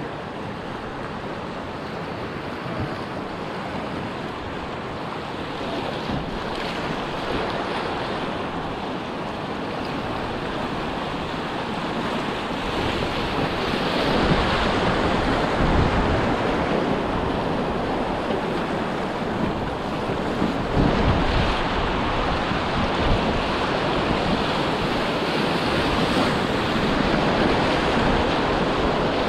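Muddy river whitewater rushing and churning around a packraft, growing louder about halfway through as the boat drops into the rapid. Low buffeting rumbles come and go on the microphone.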